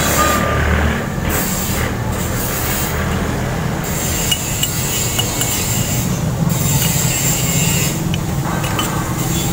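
Scraping and rubbing of metal as a hydraulic bottle jack under a truck's front axle is worked by hand, in uneven strokes.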